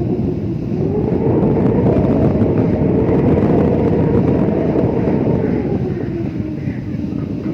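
Howling wind, a steady low rush that swells louder about a second in and dies back down near the end, used as a creepy horror sound effect.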